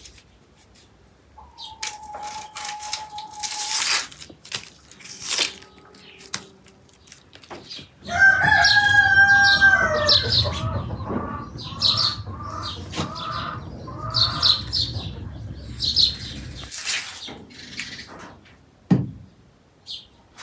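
A chicken calling loudly for about eight seconds: one long drawn-out call, then a quick run of short repeated squawks. Before it, a steady high tone lasts about two seconds. The faint clicks and scrapes before and after are a knife peeling onions.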